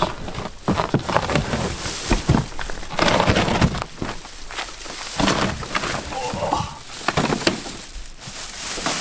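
Irregular rustling and crackling with scattered knocks and clicks, as packaging and lawn mower parts are handled during unpacking.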